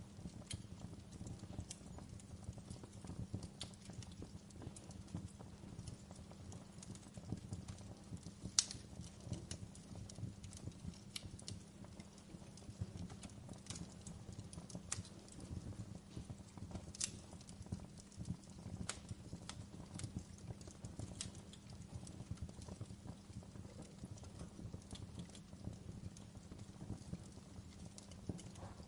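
Wood fire crackling in a fireplace: a steady low rumble of burning with irregular sharp pops and snaps, the loudest about eight and a half seconds in.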